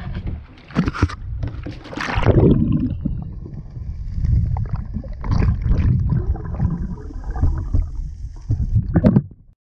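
River water sloshing and gurgling around a half-submerged camera, with irregular splashes, the sharpest about one and two seconds in and near the end.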